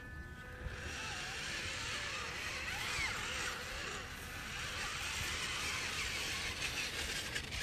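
Toy RC monster truck's electric motor and gears whirring steadily as it drives over grass.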